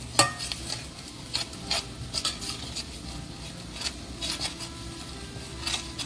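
A metal spoon stirs and scrapes onions and masala around a stainless steel frying pan, with irregular clinks and scrapes, the loudest just after the start. Under it is the low sizzle of the spices and onions frying.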